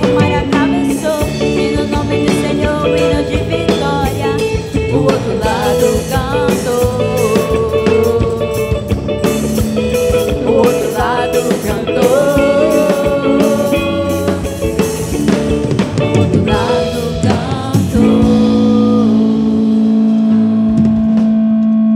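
Gospel band playing on without lyrics, with drum kit and guitar and melodic lines that bend in pitch. About 18 seconds in, the drumming stops and the band holds a final long chord.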